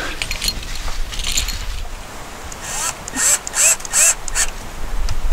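A dog barking several times in quick succession, a little past halfway, over faint scraping and handling of wiring at an electrical box.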